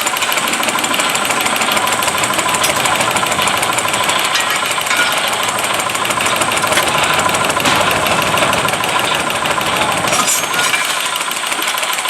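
Half-scale Case steam traction engine running a belt-driven sawmill: a steady mechanical din with fast, even pulsing.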